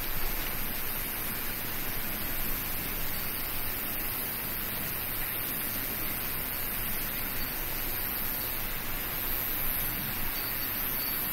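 Steady, even hiss of background ambience with no distinct events.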